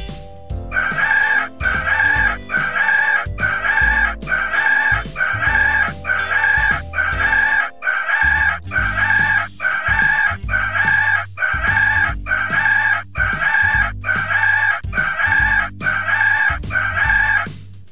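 Poultry call repeated in an exact loop, the same call a little more than once a second about twenty times, over low background music.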